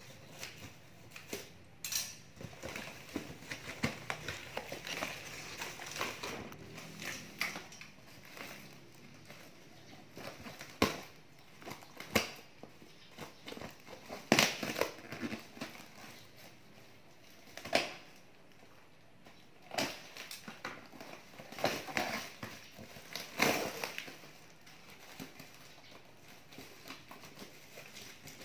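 Cardboard and clear plastic packing film crinkling and crackling as a parcel is cut open with scissors and pulled apart, in irregular rustles with sharp snaps and clicks.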